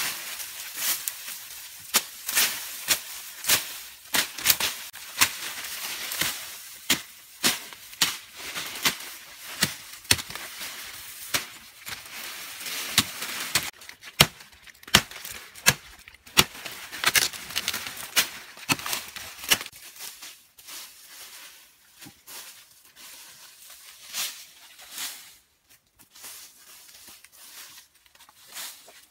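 A large curved bush knife hacking through brush and saplings: sharp, irregular chops, often one or two a second. After about twenty seconds they come sparser and fainter.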